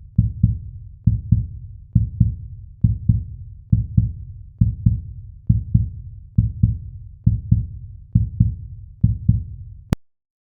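Heartbeat sound effect: deep, low double thumps, one pair about every second, repeating steadily before cutting off abruptly near the end.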